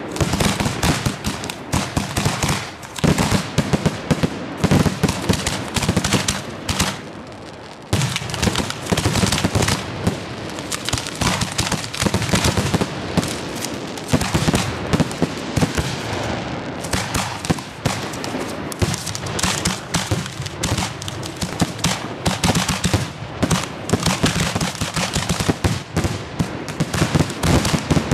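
Finale barrage of professional aerial fireworks shells: a dense run of rapid, overlapping bangs with barely a gap between them. There is a short lull about seven seconds in, then the barrage resumes.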